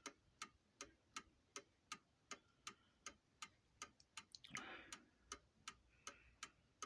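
New Haven mantel clock movement ticking evenly, about two and a half ticks a second, from its half-deadbeat escapement with the mainspring fully wound. A brief soft rustle comes about four and a half seconds in.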